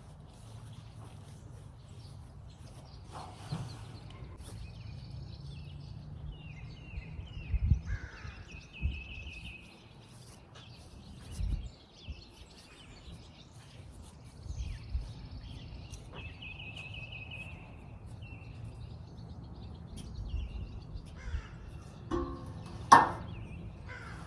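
Birds calling in short series a few times over a steady low rumble, with a few dull thumps and one sharp knock near the end.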